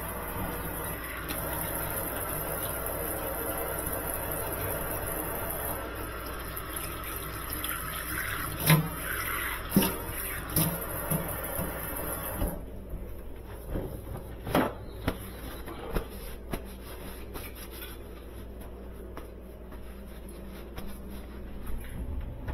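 Sub-Zero 511 refrigerator's condenser fan running, a steady rush of air with a faint hum, which cuts off abruptly about halfway through. Sharp clicks and knocks of handled parts and tools come shortly before the cutoff and after it.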